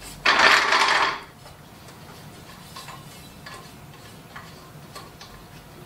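Metal parts of a screen printing press being handled: a loud scraping rush about a quarter second in, lasting about a second, as a screen holder is slid into place. Scattered light metal clicks and taps follow.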